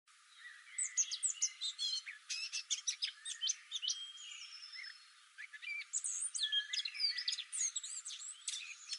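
Several birds chirping and singing in quick, overlapping calls and whistles, with a short lull about five seconds in.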